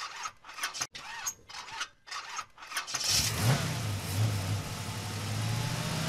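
A run of short mechanical clicking bursts, then about halfway through a car engine starts and runs, revving up briefly.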